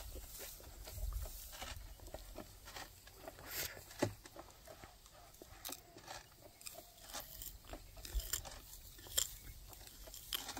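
Irregular crackling and rustling of rice plants brushing and snapping against someone wading through a paddy field.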